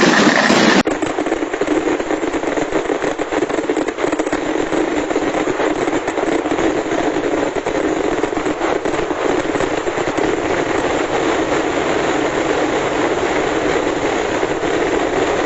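Vedikettu fireworks barrage: a dense, continuous rattle of rapid firecracker bursts blending into one another. It starts abruptly about a second in.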